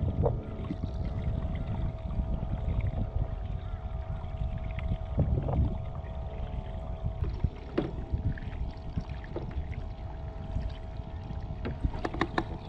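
Wind buffeting the microphone and choppy water slapping against a fishing kayak's hull, over a faint steady hum. A few sharp knocks stand out, the loudest cluster near the end.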